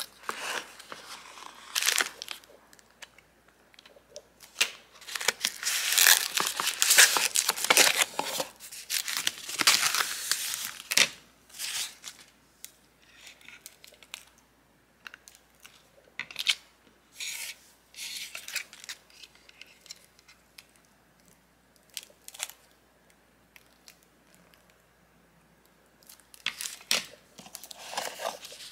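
Packaging being torn open and crinkled by hand, in irregular bursts that are busiest between about five and eleven seconds in, then thinning to scattered short rustles.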